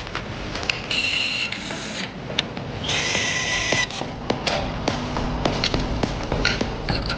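Workshop tool sounds on an engine being overhauled: scattered sharp metal clicks and knocks, with two short bursts of high hiss about a second in and about three seconds in.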